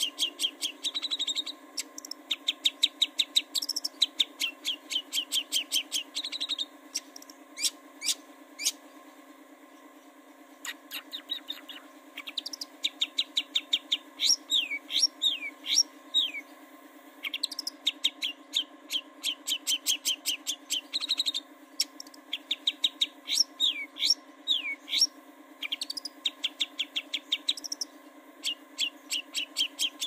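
Long-tailed shrike (cendet) singing in rapid chattering phrases of short, sharp repeated notes, some sliding downward, with a short lull about a third of the way in.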